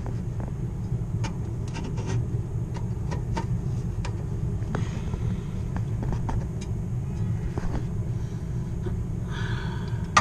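Steady low rumble of running rooftop HVAC equipment, with scattered light clicks and taps.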